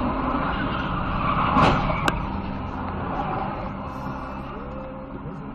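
Car collision heard from inside the car: a loud impact about a second and a half in, then a sharp click half a second later, over steady engine and road noise.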